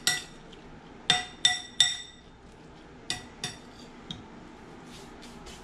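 Metal spoon clinking against a glass bowl while stirring pico de gallo. Each strike rings briefly. There is a quick run of clinks in the first two seconds, then a few fainter, more spaced ones.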